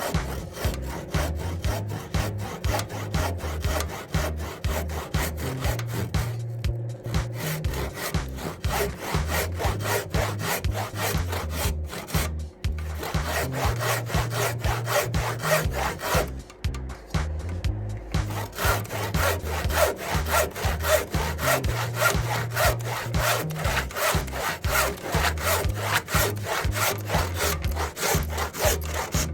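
BAHCO hand saw cutting through wood with quick, even back-and-forth strokes, pausing briefly a few times.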